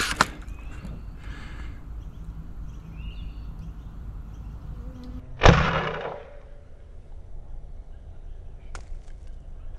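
A single loud, sharp clack from the Sabre M20S spring-powered foam dart blaster's mechanism, about five and a half seconds in, with a short fading ring. A small click follows near the end.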